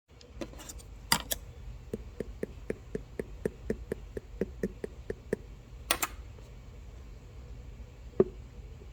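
A steady run of light taps or clicks, about four a second, with a few louder sharp clicks among them and one last sharp click near the end, over a low steady hum.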